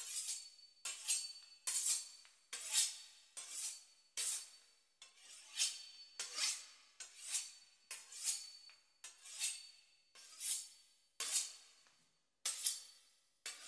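A knife sawing through the crisp pastry crust of a beef Wellington, in repeated separate strokes about one every three quarters of a second.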